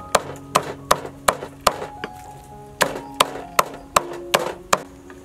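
A broad knife chopping raw pork on a wooden chopping board: sharp chops about two or three a second, in two runs with a short pause near the middle.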